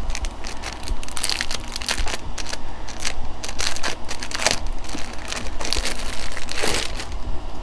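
Packaging being handled and unwrapped, crinkling and crackling irregularly.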